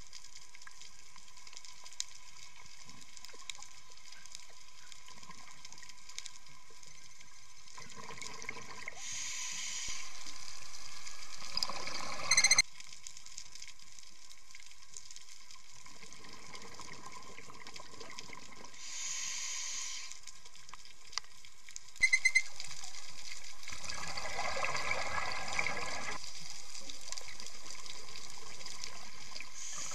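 Underwater sound of a scuba diver's regulator breathing: hissing inhalations and bubbling bursts of exhaled air every several seconds. Two brief sharp clicks stand out, about twelve seconds in and again about ten seconds later.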